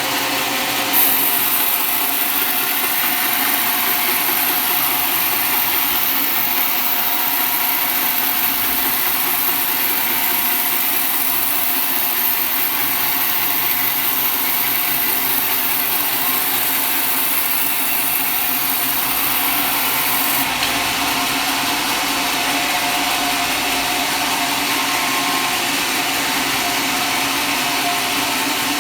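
Sawmill machinery running steadily while cutting wood: a loud, even mechanical drone with a strong high hiss that eases slightly about twenty seconds in.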